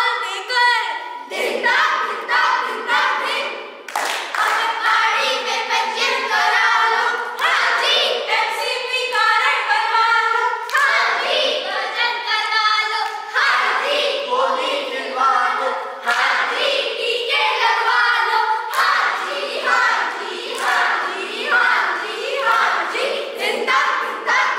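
A group of young voices singing together in chorus, with rhythmic hand clapping.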